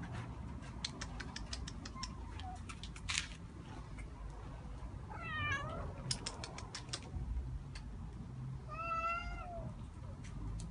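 Domestic cats meowing twice: a wavering meow about five seconds in and a single rising-and-falling meow about nine seconds in. Light clicks are scattered throughout over a low steady background hum.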